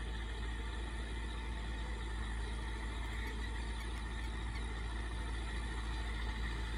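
Massey Ferguson 385 tractor's four-cylinder diesel engine running steadily at a distance under load, driving a rotavator through field stubble.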